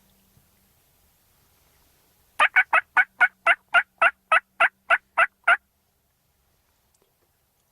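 A run of about a dozen loud, evenly spaced turkey yelps, roughly four a second, lasting about three seconds and then stopping.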